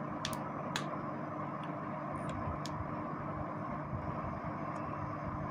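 Steady background noise with a faint hum. A few light clicks come from a small microphone capsule and a soldering iron being handled.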